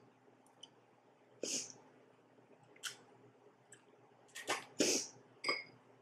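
Noodles being slurped off chopsticks in several short hissing pulls: one about a second and a half in, and a louder cluster in the last two seconds.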